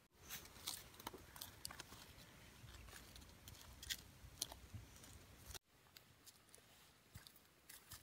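Near silence with faint, scattered small clicks and crackles. The sound drops out abruptly twice, at the very start and about five and a half seconds in.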